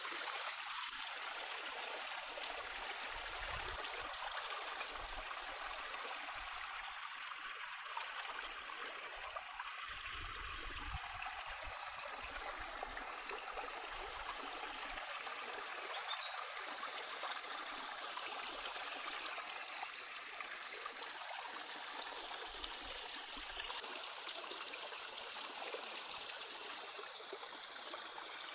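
Shallow stream running steadily over rocks, an even rushing and trickling of water.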